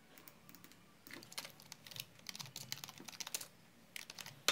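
Typing on a computer keyboard: a quick run of key clicks starting about a second in, then a few more near the end.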